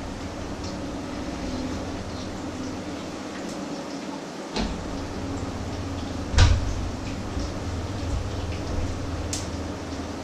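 Fritters frying in a pan, a steady sizzle with scattered small pops over a low hum. Two dull thumps, the louder about six seconds in, come as a door is shut, and there is a short click near the end.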